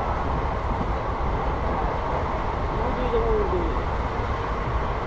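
Passenger train coach running along the rails, heard from its open door: a steady rumble and rush of wheel and running noise.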